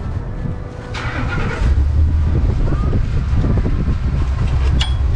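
A steady low rumble swells in about two seconds in and stays loud. Near the end there is a single sharp metallic click with a brief ring, as pliers work a brass fitting on the gas meter piping.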